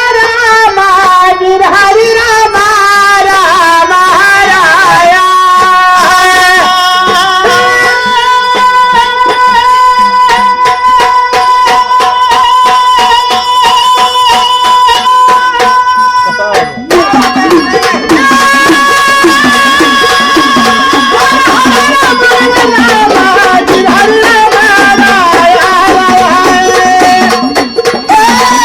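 Gondhal folk music: sambal drums beaten in a fast, steady rhythm under a sustained keyboard melody. About 17 seconds in the music drops for a moment and a new phrase starts with a wavering lower melody line.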